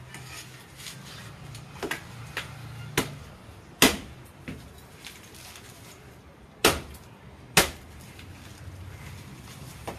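A machete chopping into a coconut's fibrous husk against a wooden block, husking it: several sharp chops at irregular intervals, the loudest about four seconds in and two more close together about seven seconds in.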